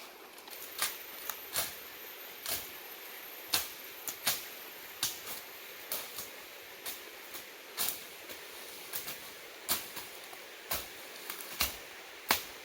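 Irregular sharp clicks and knocks, about twenty of them unevenly spaced, over a steady hiss.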